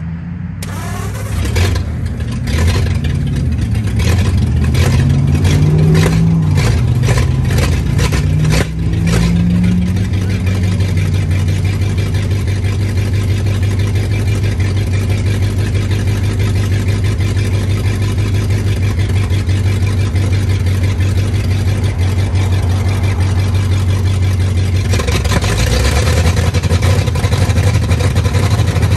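1939 Ford truck's flathead V8 running, its speed rising and falling for the first ten seconds or so, then settling into a steady idle.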